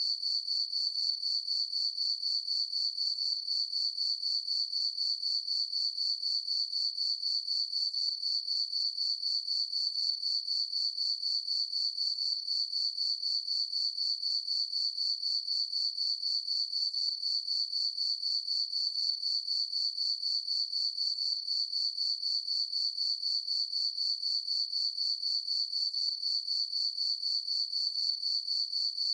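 Crickets chirping in a steady, high-pitched trill that pulses evenly and fast, without a break.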